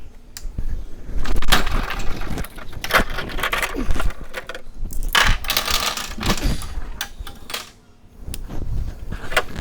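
Pinball machine under test: sharp mechanical clicks and metallic clattering and rattling bursts, with a short lull near the end.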